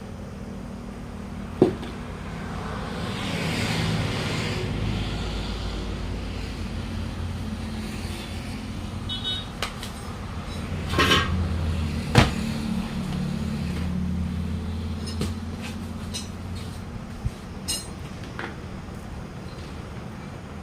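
A vehicle engine running, louder through the middle stretch, with a few sharp metallic knocks and clanks. The loudest knocks come about one and a half seconds in and about twelve seconds in.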